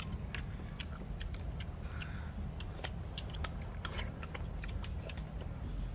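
Light, irregular clicks and taps of cooked field snail shells knocking against each other and against a clay dish as the meat is picked out with thin sticks, over a low steady rumble.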